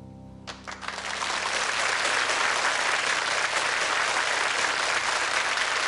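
The last piano chord of a song fades out. About half a second in, a studio audience breaks into applause, which swells within a second to steady, dense clapping.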